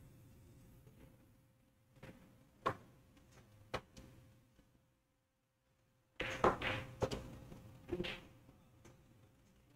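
Pool balls on a pool table: a few sharp single clicks, then a louder cluster of clacks and knocks about six seconds in as the cue ball is shot into the last object ball and it drops into a pocket, winning the rack.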